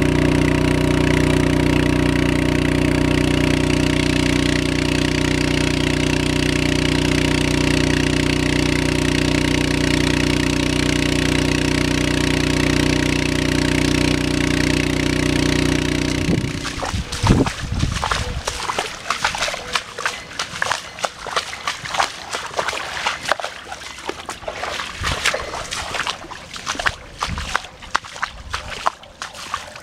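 A motor running steadily with a regular beat. About halfway through it stops, and rain is heard pattering and splashing in irregular ticks on the flooded pavement and standing water.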